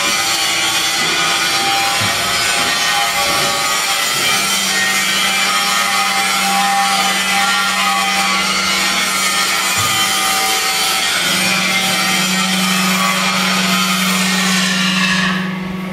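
PET bottle baler machine running: a steady, loud grinding and scraping noise. A low hum comes in about four seconds in, breaks off briefly around ten seconds, returns, and the noise fades near the end.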